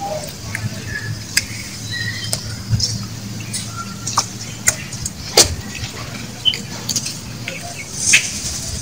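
Outdoor ambience: scattered sharp clicks and ticks, the loudest about halfway through, with brief high chirps and a low steady hum.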